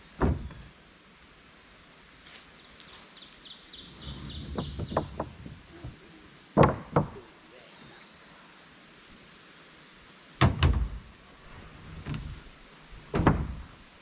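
Freshly milled wooden boards being dropped and stacked onto a lumber pile: a series of sharp wooden clunks and clatters at irregular intervals, with two in quick succession about seven seconds in.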